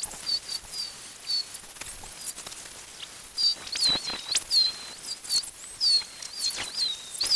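Small birds chirping and twittering with quick high, wavering notes, and a few short scratchy sounds in the second half.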